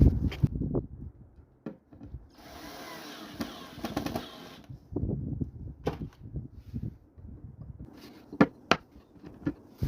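A power drill runs in one steady whirr of about two seconds, among sharp knocks and clatter of things being handled.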